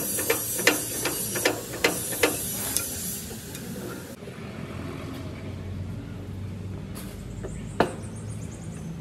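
Repair work on a tractor: about a dozen irregular sharp knocks and taps in the first three seconds, then a quieter steady background with one more sharp knock near the end.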